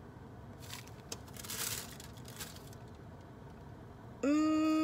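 Soft rustling of a food wrapper as a sandwich is handled, then near the end a loud, steady pitched tone about a second long begins with a slight rise at its start.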